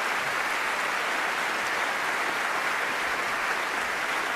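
A large theatre audience applauding, the clapping of many hands steady and even throughout.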